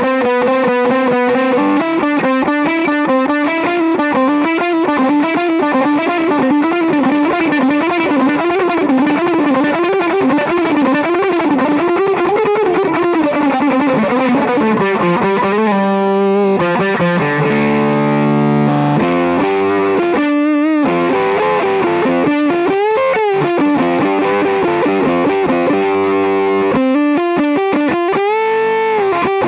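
Fender Jaguar Special electric guitar played through an Earthquaker Devices Zap Machine germanium/silicon hybrid fuzz pedal into an Ampeg Gemini I amp. A fuzzy sustained lead note wavers up and down in pitch for about the first half, then gives way to choppier single notes and chords, with a run stepping down in pitch just past the middle.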